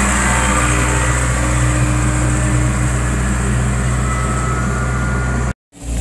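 Backhoe loader's engine running at a steady speed as the machine drives along carrying a long log. The sound cuts off abruptly near the end.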